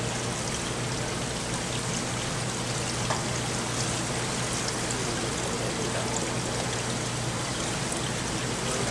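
Steady rushing and trickling of water in an indoor diving pool, over a steady low hum, with one faint click about three seconds in.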